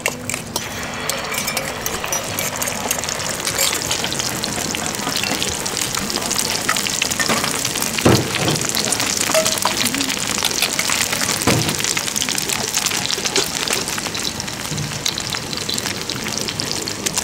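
Beaten egg with chopped vegetables frying in hot oil in a wide pan for a Thai omelette: a steady crackling sizzle that builds up in the first couple of seconds as the egg hits the oil. Two sharp knocks come about halfway through and again a few seconds later.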